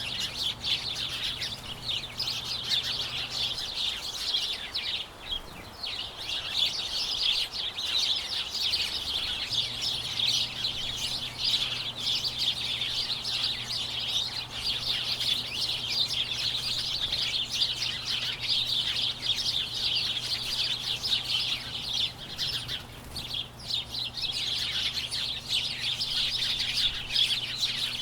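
Large flock of small birds chirping all at once: a dense, continuous chatter of many overlapping high chirps and tweets.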